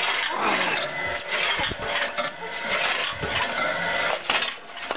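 Homemade mechanical log splitter running, its 1.5 kW electric motor and reduction gearbox driving the wedge arm, with metal and wood scraping and rubbing and a few knocks.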